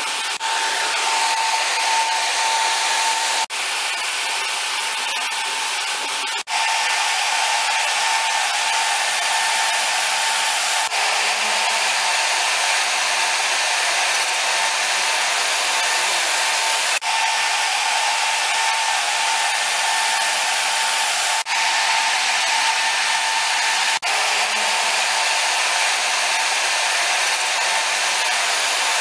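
TECO tower corn dryer's fans and burner running: a steady rush of air with a steady whine through it, cutting out briefly a few times.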